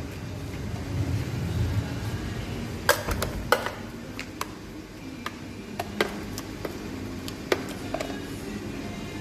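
Thick blended ice frappe sliding and plopping out of a blender jar into a glass, with scattered sharp clicks and knocks of the jar against the glass. There is a low rumble about a second in.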